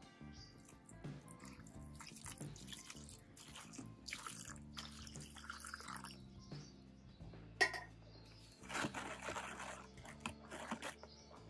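Water poured into a plastic tub and splashing over a hammer head, then sloshing as a gloved hand works in the water, with one sharp tap in between, over background music.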